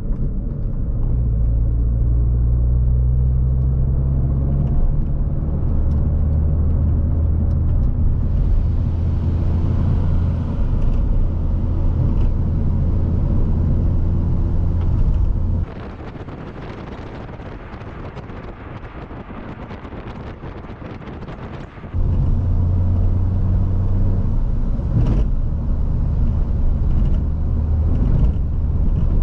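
2007 Mini Cooper S (R56) turbocharged 1.6-litre four-cylinder with a Remus exhaust and stage 2 tune, heard from inside the cabin while driving: a steady low engine drone that shifts pitch a few times. For about six seconds in the middle the drone drops away, leaving a quieter hiss, then it comes back.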